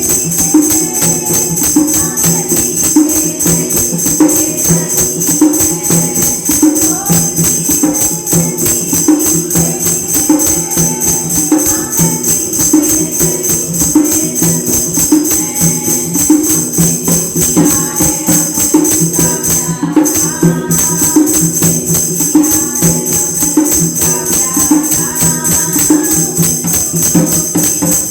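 Women singing a Krishna bhajan with a steady, fast rhythmic percussion accompaniment.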